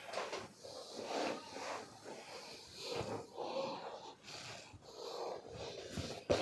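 A patient on a chiropractic table breathing out audibly through an open mouth, several soft breaths in a row while relaxing before an adjustment. A sharp click comes near the end.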